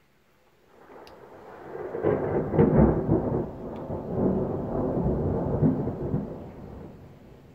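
Thunder from a nearby lightning strike: a rumble builds from about a second in, breaks into heavy rolling claps around two to three seconds in, rolls on and fades away near the end.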